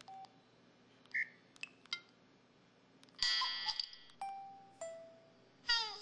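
Samsung SCH-V330 mobile phone playing a string of its built-in sound effects: short electronic beeps and blips, a bright chime-like jingle about three seconds in, two single tones that fade out, and a quick falling sweep near the end.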